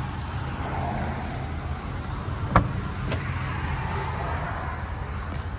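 Ford E-450 chassis's 6.8 L V10 gas engine idling steadily. A sharp click about two and a half seconds in, and a softer one half a second later, come as the cab door is opened.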